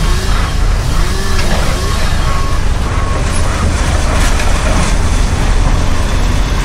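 Heavy construction machinery running with a steady deep rumble over dense site noise, with short beeps in the first half.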